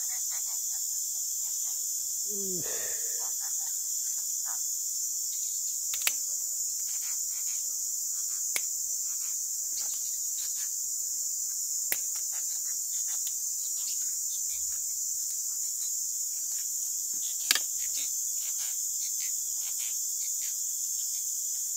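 Steady, high-pitched chorus of forest insects, with a few sharp clicks and a short low vocal sound about two and a half seconds in.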